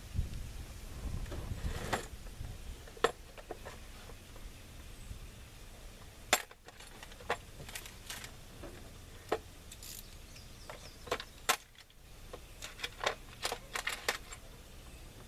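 Scattered sharp clicks and light metallic clinks of hand tools and small metal parts being handled, some in quick clusters near the end, with a low rumble for the first two seconds.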